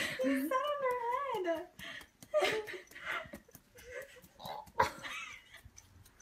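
A dog whining in a high, wavering pitch for the first second or so, followed by quieter short whines and scattered clicks, with one sharp click near the five-second mark.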